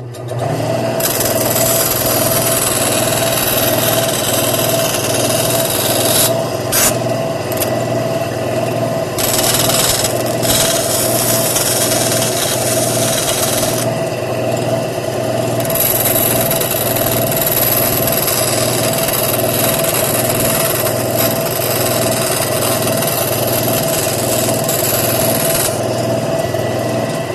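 Bandsaw starting up and running with a steady motor hum while its blade cuts through thin birch plywood; the high hiss of the cut comes and goes as the wood is fed through, easing off briefly a few times.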